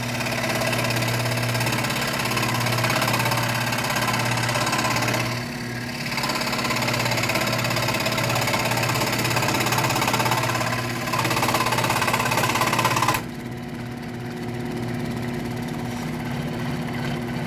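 WEN scroll saw running, its new reciprocating blade cutting smoothly through wood with a steady rasp over the motor's hum. The cutting eases briefly about five seconds in, and after about thirteen seconds the rasp stops, leaving only the saw's hum.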